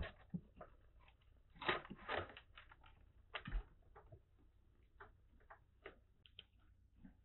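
Kittens moving about inside a wire pet cage: scattered light clicks and scuffs, with louder bursts about one and a half to two seconds in and again near three and a half seconds.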